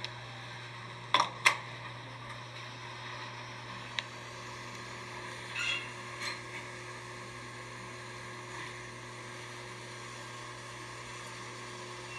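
Steady low hum inside an elevator car, broken by two sharp clicks about a second in, a single click a few seconds later, and a short higher-pitched sound near the middle.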